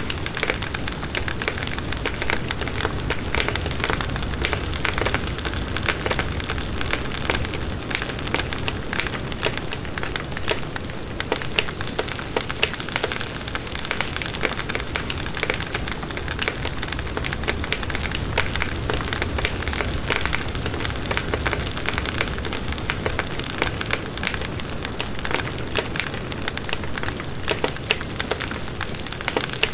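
Bonfire burning: a steady rush of flames with dense, constant crackling and popping of burning wood.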